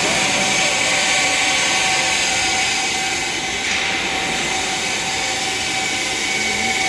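Multiple-spindle drilling machine dry running without a workpiece: a steady mechanical whir with a constant high whine from the running spindles, dipping slightly about halfway through.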